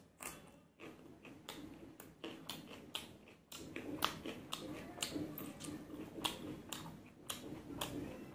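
A person chewing a mouthful of roti, potato-cauliflower curry and raw onion: a run of crisp crunches and wet mouth clicks, about two a second.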